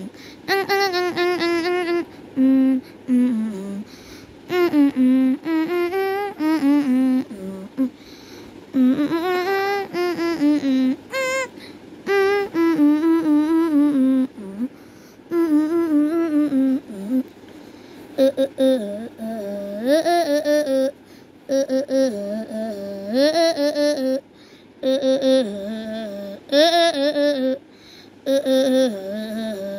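A voice humming a wordless tune in short phrases of stepping notes, with brief pauses between them.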